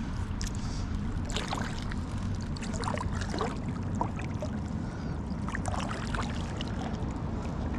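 Paddle strokes in calm water: a few irregular splashes and drips of water from the paddle over a low, steady rumble.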